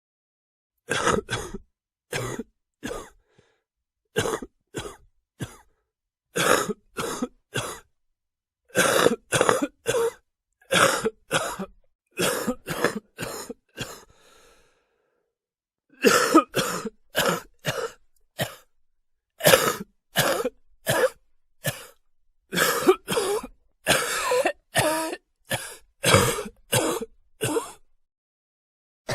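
A person coughing over and over in quick fits of two to four coughs, with short pauses between fits and a longer gap of about two seconds just after the middle.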